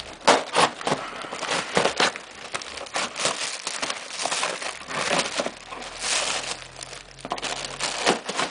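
Packaging being opened and handled: irregular crinkling and rustling of the box and its plastic wrapping.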